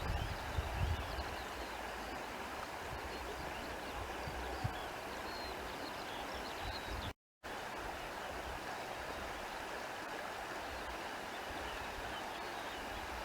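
Countryside ambience: a steady rush of running water, with low wind rumble on the microphone and faint high chirps in the first few seconds. The sound drops out to silence for a moment about seven seconds in.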